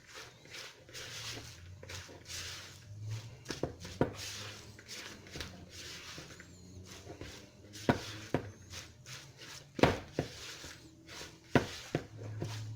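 Thick chickpea falafel paste being mixed with flour in a bowl: repeated scraping swishes, with a few sharp knocks of the utensil against the bowl.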